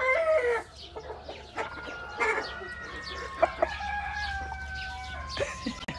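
Chickens clucking with short calls throughout, and a rooster crowing, one long drawn-out crow held for about three seconds in the middle.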